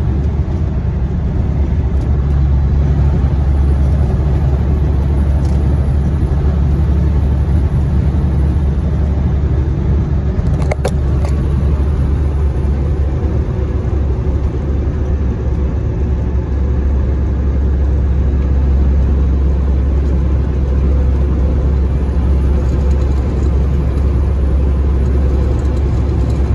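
Steady low drone of a semi-truck's diesel engine and road noise at highway speed, heard inside the cab. A single sharp click about eleven seconds in.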